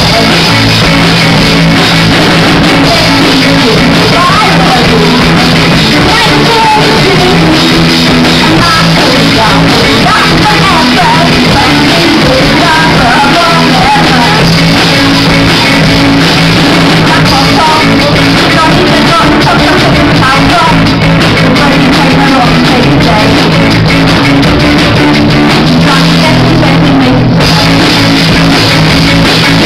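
Live rock band playing loud: electric guitars, bass guitar and drums, with vocals sung into the microphone over the top.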